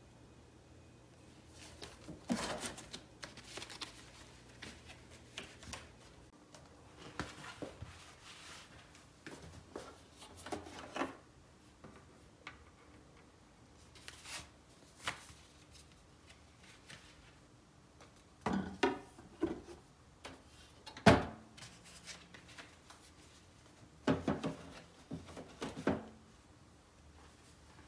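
Vinyl record and turntable being handled: irregular rustling and sliding of cardboard record sleeves with soft knocks and clicks, in scattered clusters. One sharp click about three-quarters of the way through is the loudest sound.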